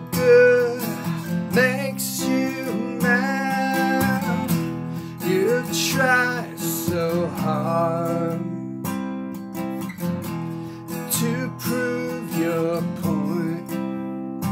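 Acoustic guitar strummed in chords while a man sings long, drawn-out notes over it. The voice drops out for a second or two past the middle, leaving the guitar alone, and comes back near the end.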